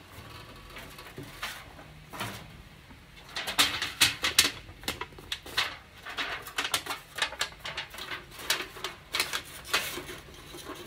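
Thin aluminum sheet from disposable cake pans crinkling and crackling as it is handled, bent and pressed over a wire frame. The sound is irregular sharp crackles and clicks that begin about three and a half seconds in and go on in quick clusters.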